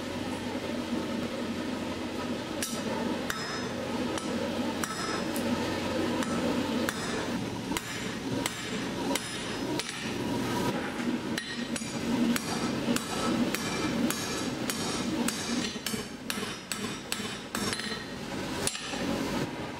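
Blacksmith's hammer striking hot metal on an anvil in irregular blows, starting a few seconds in and coming faster and closer together in the second half, over steady background noise.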